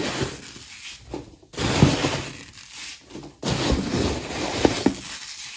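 Cornstarch loose-fill packing peanuts rustling and crunching as handfuls are scooped out of a cardboard shipping box and dropped into another box, in three bursts with short pauses between.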